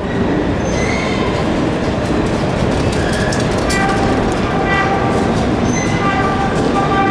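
Subway train running in a tunnel, steady and loud. Its wheels click over rail joints, with short high squeals and tones coming and going.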